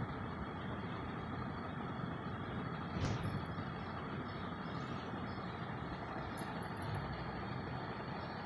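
Steady background noise with a low rumble, broken by one sharp click about three seconds in.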